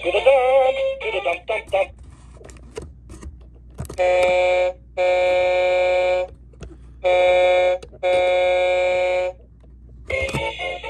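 Toy garbage truck's electronic sound chip: a couple of seconds of warbling electronic sound, then four loud, steady, even-pitched electronic tones like a horn, in two short-long pairs.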